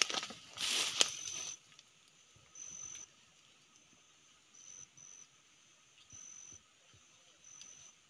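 Rustling of leaves and brush as someone pushes through dense undergrowth, stopping about a second and a half in. After that, a high-pitched insect trill sounds in short bursts of about half a second, every one to two seconds.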